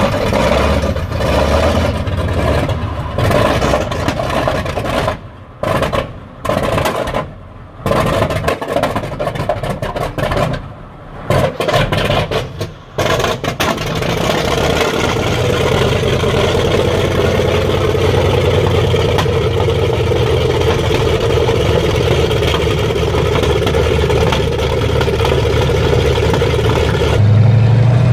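M4 Sherman tank engine cold starting: for the first dozen seconds or so it runs unevenly, with several sudden drop-outs, then catches and settles into a steady run. Near the end the sound turns louder and deeper.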